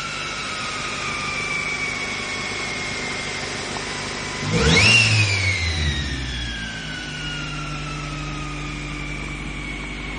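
Toyota 4A-FE 1.6-litre DOHC engine with a CT12 turbocharger at idle, the turbo whistle falling in pitch as it winds down. About four and a half seconds in, a quick throttle blip sends the turbo wheeze rising sharply, then it spools down slowly over several seconds with a falling whine.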